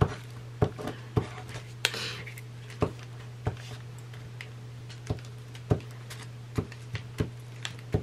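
Hands handling paper on a worktable: scattered light clicks and taps about once or twice a second, with a brief paper rustle about two seconds in. A steady low electrical hum runs underneath.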